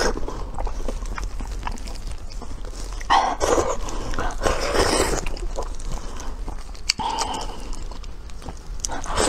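Close-miked eating sounds of soft, falling-apart braised pork: lip smacking, sucking and chewing, with many small sticky clicks and a few louder noisy sucks a second or two apart.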